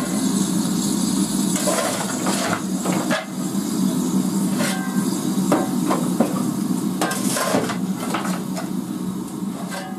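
Standing BR Standard 4MT 2-6-4T steam tank locomotive, hissing and rumbling steadily. Over it come about eight sharp metal-on-metal clanks from the fireman's coal shovel on the footplate as he fires the engine.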